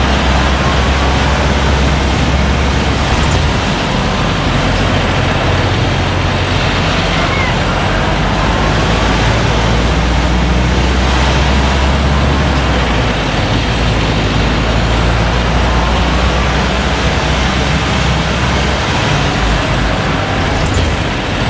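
Volvo truck's diesel engine running as the truck drives, under a loud steady rush of noise. The low engine note weakens about three and a half seconds in, comes back, and falls off again twice later on.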